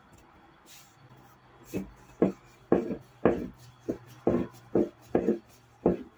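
Wooden rolling pin rolling out a small round of dough on a table: a run of short, even back-and-forth strokes, about two a second, starting near the end of the second second.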